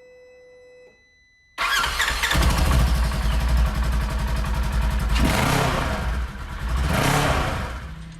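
A short steady electronic tone, then about a second and a half in a side-by-side UTV engine bursts into life and runs loud with a fast low rumble, revving up twice near the middle and near the end.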